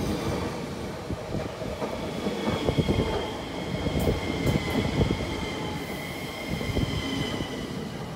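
A Siemens Desiro ML electric multiple unit (SNCB AM08) passing close by: a steady rumble of wheels on rail, broken by irregular clacks over the rail joints. A thin, high squeal holds through the middle of the pass.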